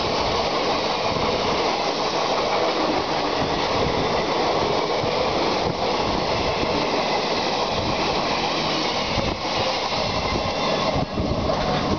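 Steady, loud rushing rail noise from a moving EMU train, with the coaches of the Shaktipunj Express running alongside on the next track. The noise thins a little near the end as the last coach clears.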